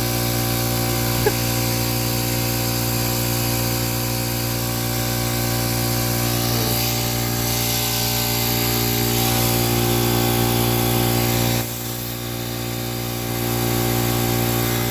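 A motor-driven machine running steadily, a constant hum with several fixed whining tones; it drops in level for about two seconds about twelve seconds in, then comes back up.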